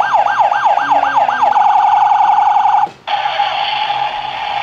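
Electronic siren from a Tonka police Emergency Services Unit toy truck's speaker, a rising-and-falling wail that speeds into a fast warble. It cuts off about three seconds in, and a steady buzzing tone follows.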